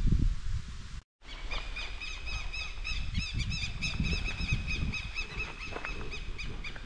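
Wind rumbling on the microphone, then after a brief cut a bird calling over and over in a quick series of short, high chirps, with light wind rumble underneath.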